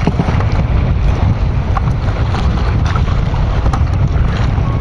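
Wind buffeting the microphone, a steady rushing noise heaviest in the low end, over the sea around a small outrigger fishing boat.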